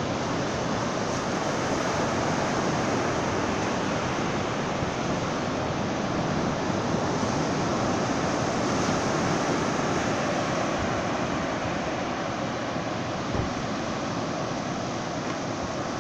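Ocean surf breaking and washing up a flat sand beach: a steady rush of waves that swells a little and eases.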